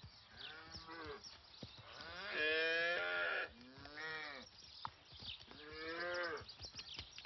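Cattle mooing: four long moos of about a second each, the second the loudest.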